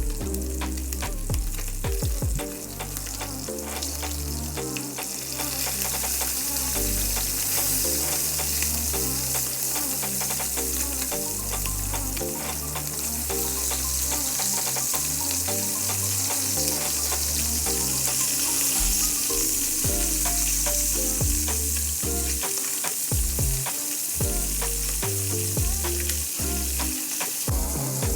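Chop suey sizzling as it is stir-fried in a pan, with scattered clicks of stirring; the sizzle grows louder about five seconds in. Background music with a stepping bass line plays along.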